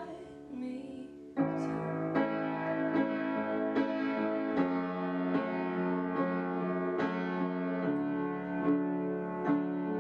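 Upright piano playing slow sustained chords, coming in loudly about a second and a half in after a quieter passage with a singing voice, with a new note struck a little more than once a second.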